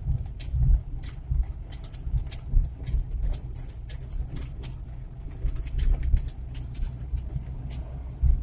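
Suzuki Carry 1.0 pickup's four-cylinder engine running under way, heard from inside the cab with road rumble, with many short light clicks or rattles throughout.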